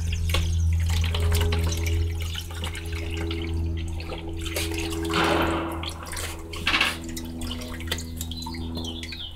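Water pouring in a thin stream from a drink-cooler jug's spout into a plastic dog bowl, splashing, louder about five seconds in and again briefly near seven seconds. A steady low hum runs underneath.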